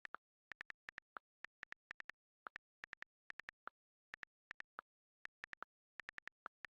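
Rapid, irregular key-press clicks of a phone's on-screen keyboard during typing, several a second with brief pauses between words. Every few clicks one is slightly lower-pitched.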